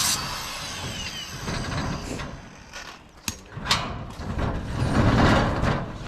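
Metal roll-up storage unit door rattling as it is worked open, with two sharp clicks shortly before the louder rattle.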